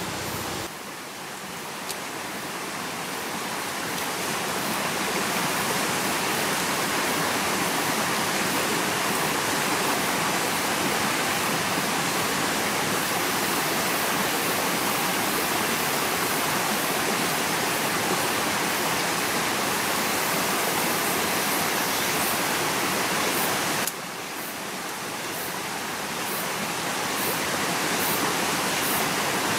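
Steady rushing noise like running water from a stream, which dips briefly about a second in and again about three quarters through before building back up. Faint, evenly repeated high chirps join it in the last few seconds.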